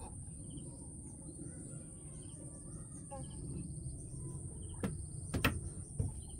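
Outdoor country ambience: small birds chirping now and then over a steady high insect drone and a low rumble, with three sharp knocks about five and six seconds in.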